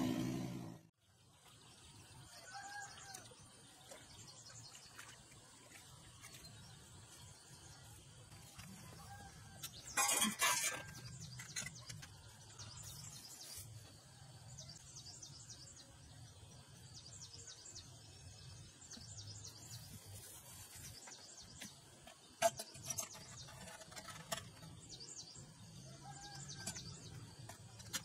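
The two-wheel walking tiller's engine cuts off within the first second. After that there is quiet rural ambience: birds chirping now and then and a faint steady insect hiss. A brief loud clatter comes about ten seconds in, and a few sharp clicks come around two-thirds of the way through.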